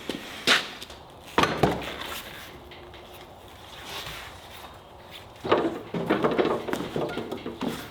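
A few sharp knocks, then a longer run of clattering knocks and rattles, typical of heavy parts being handled and set down.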